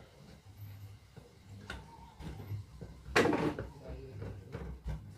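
Small kitchen handling sounds: a spoon stirring in a bowl and light knocks of utensils and containers on the counter, with one louder clatter about three seconds in.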